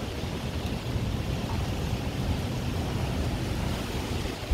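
Typhoon wind blowing steadily and buffeting the microphone, a continuous low whooshing howl.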